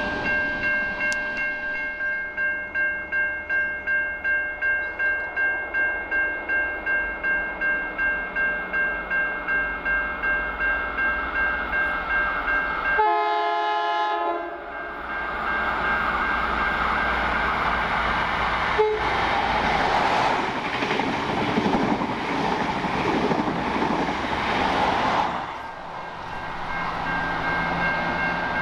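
Level crossing bell ringing steadily at about two strokes a second. About 13 seconds in, a train horn sounds briefly. Then a train passes with loud wheel and engine noise, the crossing bell still going under it.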